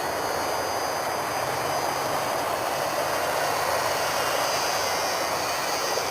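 Electric motors and propellers of a Firebird Stratos R/C plane running steadily in flight: a thin high whine over a steady rushing noise. The whine fades out near the end as the motors are cut.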